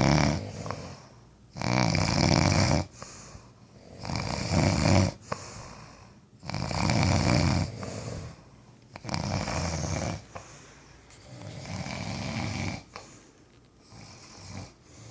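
Heavy snoring: a loud, rasping snore about every two and a half seconds, six or so in all, with quieter breaths between them.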